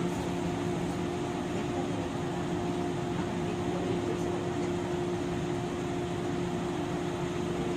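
Steady hum and fan noise from a stationary 103 series electric train's auxiliary equipment, heard inside the car: a few constant tones over an even whirr, with no traction motor or wheel sound.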